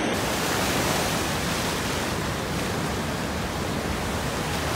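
Rough ocean surf breaking and washing over lava rocks: a steady, full rush of churning water.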